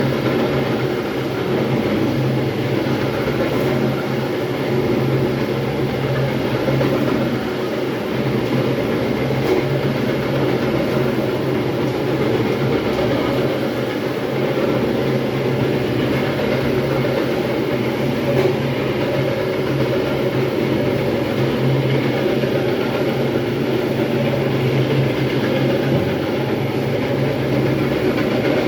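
Electric terrazzo grinding machine running steadily, a constant low hum under an even grinding noise as it works the floor.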